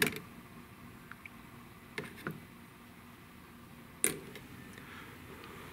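Metal spoon stirring soup in an open tin can, knocking against the can a few times: once sharply at the start, twice about two seconds in, and again about four seconds in.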